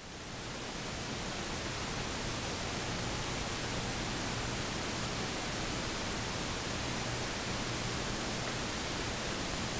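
A steady, even hiss with a faint low hum underneath, swelling up over the first second and then holding level.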